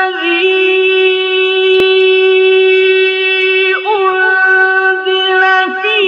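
Opening melody of long held notes, one pitch sustained for seconds at a time with brief wavering, ornamented turns just after the start, about two-thirds through and near the end. A single sharp click a little under two seconds in.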